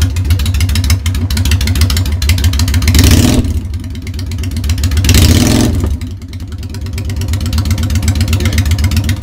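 Honda Shadow Spirit 750's V-twin running loudly through Vance & Hines Straight Shots pipes with no baffles in them. It idles and is revved twice, about three seconds in and again about five seconds in.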